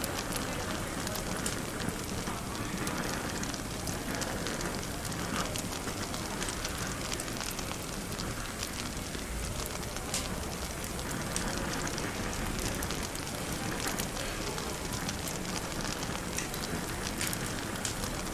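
Fireplace crackling with frequent small snaps and pops, laid over the steady murmur of café background chatter.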